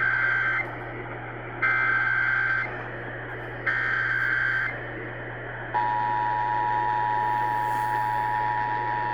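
Emergency Alert System SAME header: three one-second bursts of warbling data tones about a second apart, the last ones of the sequence, followed about six seconds in by the steady two-tone EAS attention signal. This marks the start of an emergency alert activation, here for a flash flood warning. It is heard over AM radio with a steady low hum underneath.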